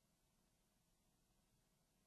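Near silence: only a very faint steady hiss.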